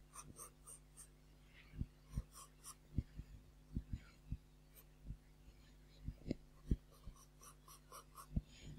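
Pencil drawing on paper: faint, short, irregular scratching strokes with soft dull taps as the lead meets the sheet.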